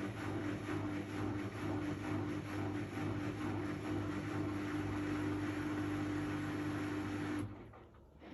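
Miele Professional washing machine running, a steady motor hum with a whine over a noisy rush; it cuts off suddenly about seven seconds in.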